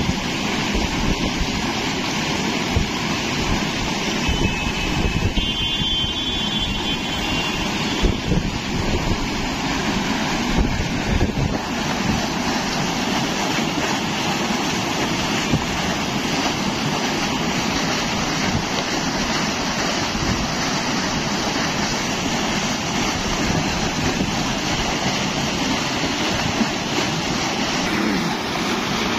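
Heavy gush of pumped canal water pouring from a wide outlet pipe into a brick tank, a loud continuous rushing splash. Underneath it runs the old black diesel engine driving the pump.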